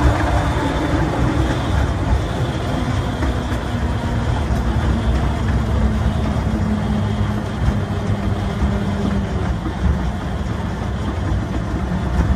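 Two-foot-gauge electric box motor running along the track: a continuous rumble and clatter of steel wheels on rail, with a steady hum from its VFD-driven AC traction motors.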